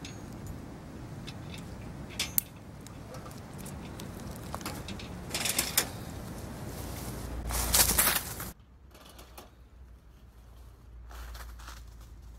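Metal clicks and creaks of a wire-mesh humane cat trap being handled and its door opened to let a cat out, with a louder burst of rustling about eight seconds in, after which the sound drops away abruptly.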